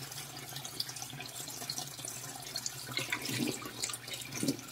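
Kitchen faucet running a thin, steady stream of water into a plastic basin in a stainless steel sink, with a few small splashes near the end.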